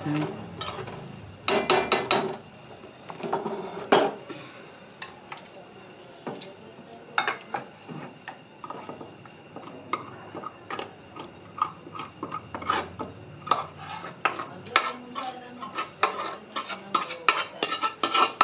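Steel spoon stirring and scraping thick curry in an aluminium pot, then scraping it out into a steel bowl: repeated metallic clinks and scrapes, some ringing briefly.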